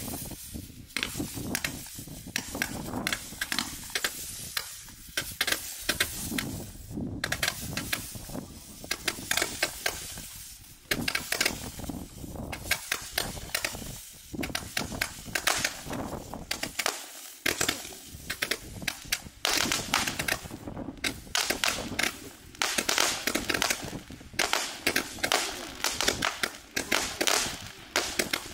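A 168-shot mini gatling-gun firework cake firing: a fast, unbroken stream of small popping shots and crackle, with a few short lulls.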